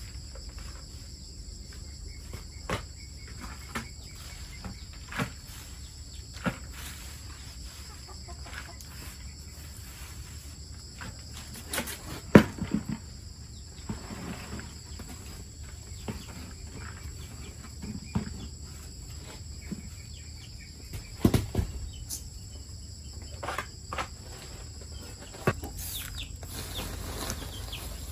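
Scattered short knocks and thuds, a few seconds apart, the loudest about twelve seconds in and again about twenty-one seconds in, over a steady high-pitched insect drone.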